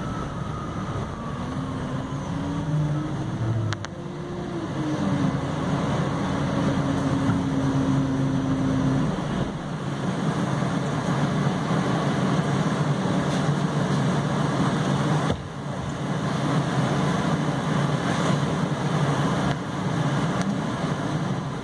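MAN Lion's City Hybrid city bus heard from inside the cabin while driving: the electric drive's whine falls as the bus slows, then rises as it pulls away and holds steady for a few seconds, under steady road and cabin rumble. Another rising whine comes in near the end as the bus speeds up again.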